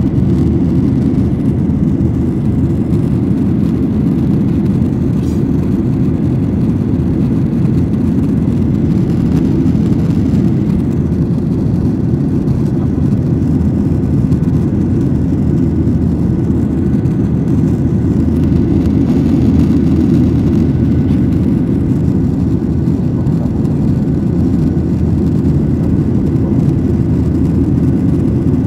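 Airplane noise: a steady low rumble of engines and rushing air that stays unchanged throughout.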